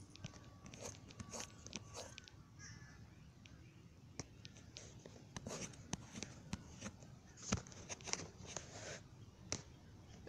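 Distant birds calling, among scattered sharp clicks and taps of handling, over a faint low rumble.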